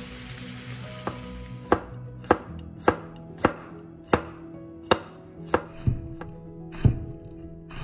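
A kitchen knife chopping on a wooden cutting board, about ten sharp strikes, roughly one every half second. Before the chopping starts, the sizzle of food frying fades out in the first second and a half.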